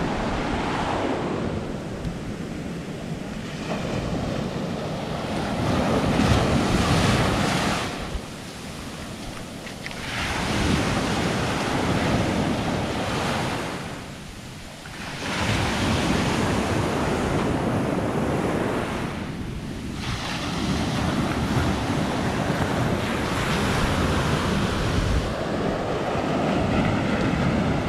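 Small sea waves breaking and washing up over sand at the water's edge, the hiss of surf swelling and falling back every few seconds, with wind buffeting the microphone.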